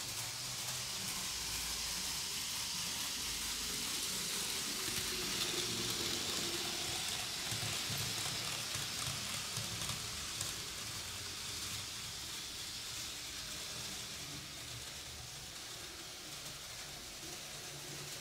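Märklin 3021 H0 model V 200 diesel locomotive running with passenger coaches on metal track: a steady hissing whir of motor and wheels on the rails. It grows louder as the train passes close, about four to ten seconds in, then fades away.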